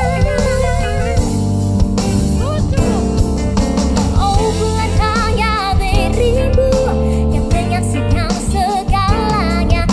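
A female singer performing a song with vibrato into a microphone, backed by a live band with drums and guitar.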